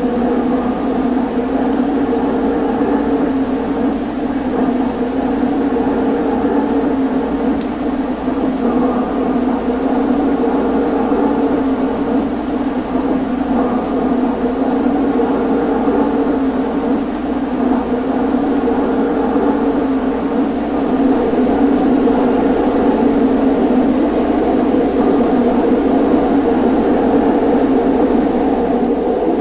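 HO scale model electric locomotives running on the layout, giving a steady, even hum that grows a little louder about two-thirds of the way through.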